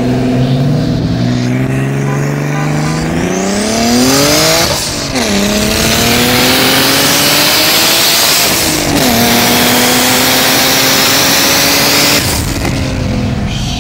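Boosted BMW engine accelerating hard at full throttle through the gears, its pitch climbing steadily, dropping sharply at two upshifts about 5 and 9 seconds in, then falling as the throttle eases off near the end, over loud wind and road noise.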